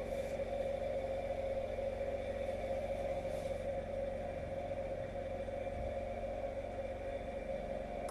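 Washing machine in its final spin cycle at 800 rpm, its motor and drum giving a steady whine, with the steady low drone of a 208 cc petrol generator powering it beneath.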